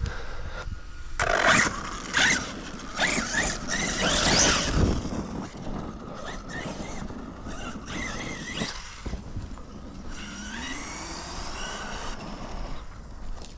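Electric RC truck's brushless motor (1480 kV Hobbystar on a 23-tooth pinion) whining as the truck drives. Its pitch rises and falls again and again with the throttle, over a steady rush of running noise, busiest in the first five seconds.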